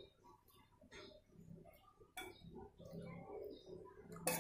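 A metal spoon clicking and scraping lightly against a plate of rice and fish while eating, a few sharp ticks with a louder clink near the end.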